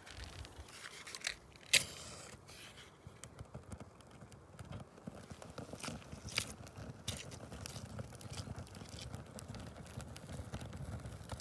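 Kindling fire catching: dry pine needles and twigs crackling with irregular small snaps as the flames take hold, with one louder sharp click a little under two seconds in.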